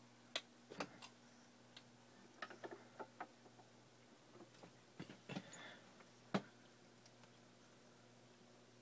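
Near silence: a low steady hum with scattered faint clicks and ticks, a few close together about a second in, around two and a half to three seconds in, and around five seconds in, with the sharpest click a little past six seconds.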